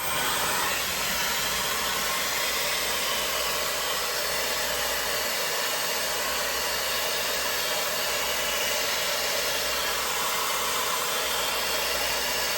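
MESCOMB 5-in-1 hot air styler, a 110,000 RPM high-speed hair dryer brush fitted with its automatic curling barrel, switched on and blowing a steady rush of air, used to curl dry hair.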